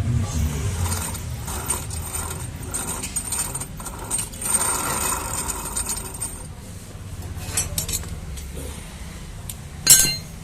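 Metal clinks and clicks of tools and parts being handled on the opened clutch of a TVS Jupiter scooter, with a loud metallic clank near the end. A low mechanical rumble runs under it and stops about six seconds in.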